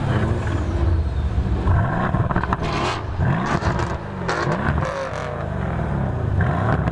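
Mercedes-AMG GLC 63 S's twin-turbo 4.0-litre V8 running at the exhaust and blipped several times, the revs rising and falling, with sharp crackles between the blips.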